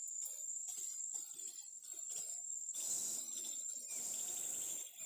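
Steady, high-pitched insect chorus, a continuous summer buzz of crickets or similar insects.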